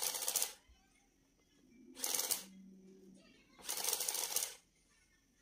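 Casio HR-8RC printing calculator's print mechanism running in three short bursts about two seconds apart, a fast mechanical rattle each time it prints a line and feeds the paper roll.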